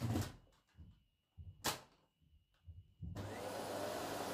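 A few clicks and knocks as the upright vacuum is handled, then about three seconds in its motor switches on, spinning up briefly before running with a steady rush of air.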